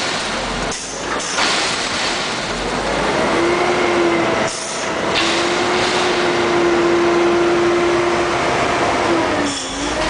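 A Mack front-loader garbage truck's diesel engine pulling hard, heard from inside the cab. The noise dips briefly twice, and a steady whine holds through the middle.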